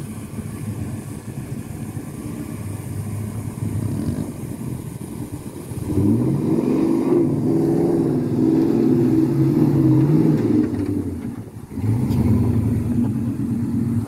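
Pickup truck engine revving under load as the truck climbs a steep dirt hill. The revs rise sharply about six seconds in and hold high for several seconds, drop off briefly, then pick up again near the end.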